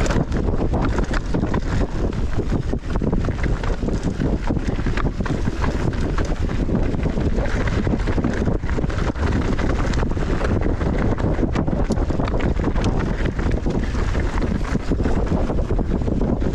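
Wind buffeting the microphone: a loud, steady rumbling rush, heaviest in the low end.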